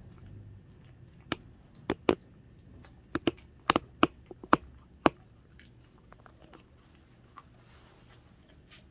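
A dachshund chewing raw chicken, with a run of sharp, loud crunches over the first five seconds and fainter chewing clicks after that.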